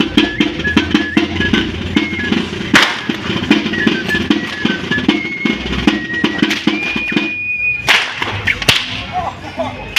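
Flute-and-drum dance music: a fast, even drumbeat under a high melody of short stepping notes and one longer held note. The music is cut by a few sharp, loud cracks, the loudest about three seconds in and two more near the end.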